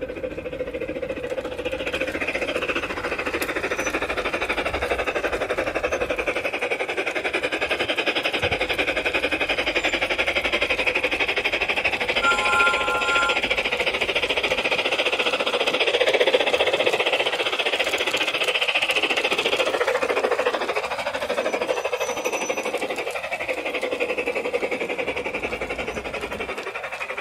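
Large-scale garden-railway model train, a red tender engine hauling coaches, running along outdoor track with a fast, steady clatter of wheels and running gear on the rails, growing louder as it passes close by about the middle and easing slightly after.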